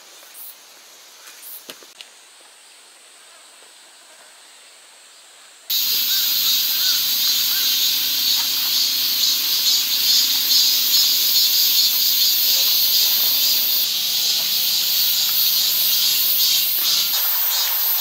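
Loud, steady shrill chorus of summer cicadas that starts abruptly about six seconds in and pulses near the end, over a faint steady low hum. Before it, near quiet with a few light scuffs.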